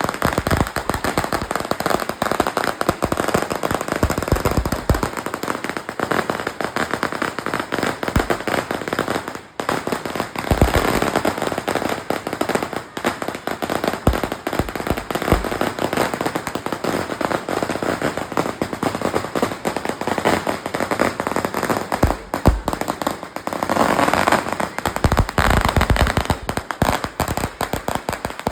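Loud strings of firecrackers going off in rapid, continuous crackling, with a brief lull about nine and a half seconds in.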